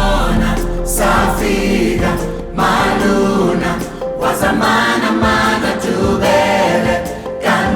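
Background music with a choir singing, in the style of African choral music.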